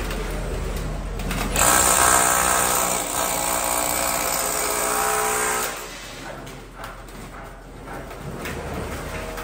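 Cordless rotary hammer cutting a channel into a concrete wall. Its hammering grows much louder and harsher about one and a half seconds in, then drops back to a lower level a little past the middle.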